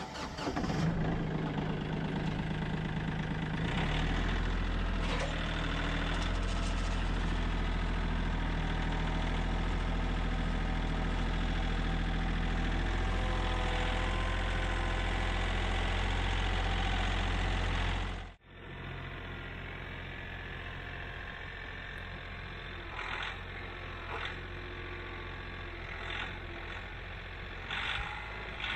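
Compact tractor engine running steadily, heard close from the driver's seat, growing fuller about four seconds in. About two-thirds of the way through it cuts suddenly to the same engine heard from farther off and quieter, with a few short knocks near the end.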